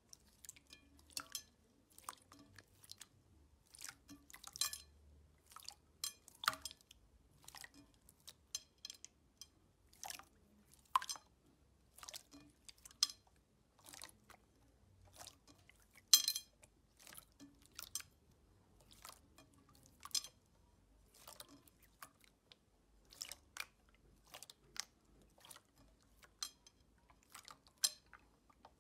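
Slime being squeezed and worked by hand: irregular small wet clicks and pops, a few every second, with one louder pop about sixteen seconds in.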